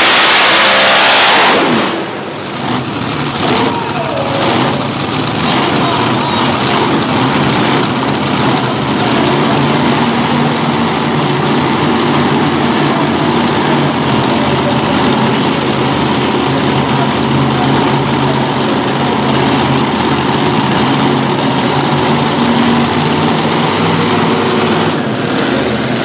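Multi-engine modified pulling tractor at full power, its engines cut back sharply about a second and a half in as the pull ends, then idling steadily together.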